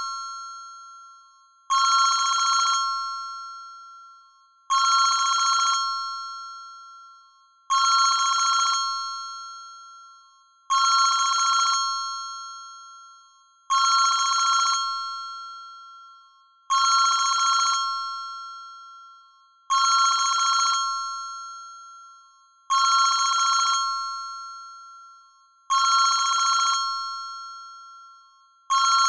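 ZTE WeGo (S155) phone ringtone playing through its speaker: a trilling two-tone ring like a telephone bell, about a second long and repeating every three seconds, each ring fading out before the next.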